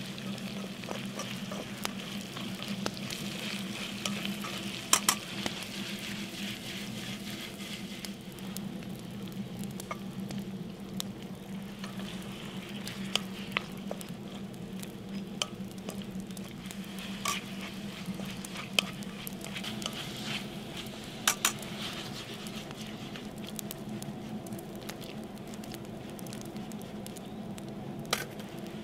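Diced pork and onion sizzling as they fry in lard in a pan, stirred now and then, with several sharp clicks of the utensil against the pan.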